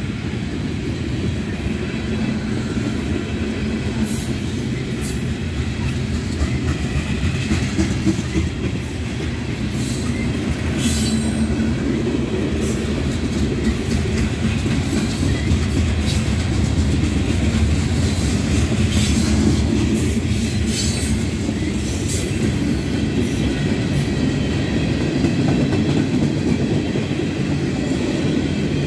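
Freight cars (covered hoppers, then tank cars) rolling past close by: a steady, loud low rumble of steel wheels on rail, with brief high-pitched wheel squeals a handful of times.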